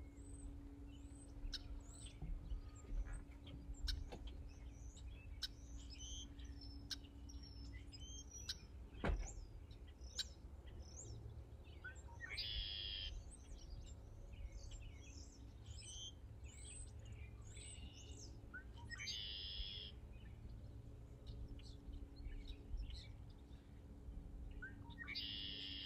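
Faint dawn birdsong: scattered chirps and whistles, with one bird repeating a short trill three times, about six seconds apart. A single sharp tap about nine seconds in.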